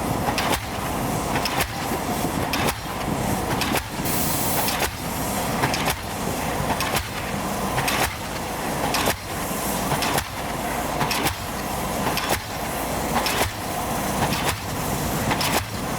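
Pile hammer on an excavator-mounted pile driver striking a pile at an even rhythm of about one blow a second, over the steady noise of the machine's engine.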